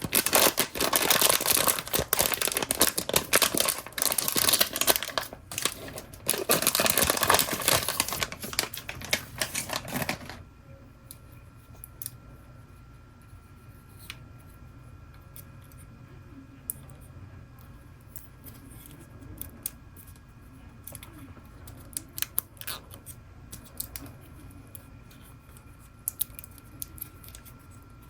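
Blind-box toy packaging being torn and crinkled open, a loud, dense crackle that stops abruptly about ten seconds in. After that only occasional small clicks and taps of handling remain.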